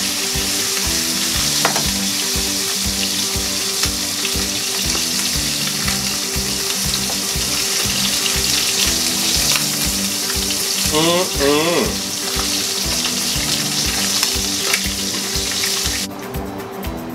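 Chicken hind quarter searing in hot oil in a steel pan, a steady loud sizzle that drops away near the end.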